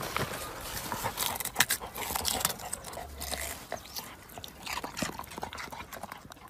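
A dog biting and gnawing at a large white root vegetable in the soil: a dense run of crunching, scraping clicks that thin out and fade toward the end.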